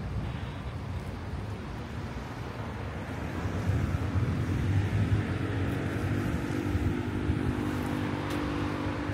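City street traffic, with a motor vehicle's engine coming close and running louder from about four seconds in, its steady hum lasting to the end.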